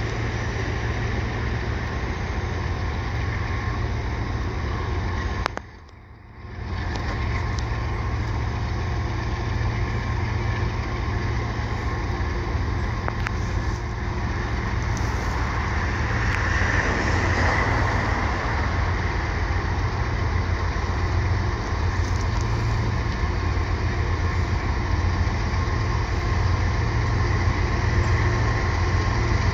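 Two CSX Tier 4 diesel-electric locomotives working at full throttle in notch 8 as they approach: a steady, deep engine drone that grows slightly louder. The sound drops out for about a second roughly six seconds in.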